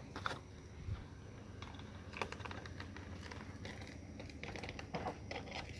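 Faint, irregular clicks and light pops from food cooking on the stove, a few sharper ticks scattered through otherwise quiet room sound.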